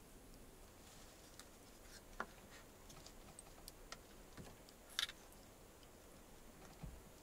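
Near silence: faint room tone with a few scattered, irregular small clicks, the sharpest about five seconds in.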